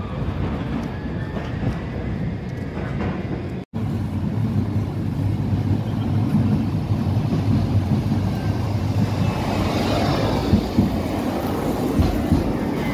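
Steady city street rumble that cuts out for an instant about four seconds in, then a modern low-floor electric tram pulling into the stop, its drive whine sliding down in pitch as it slows, in the last few seconds.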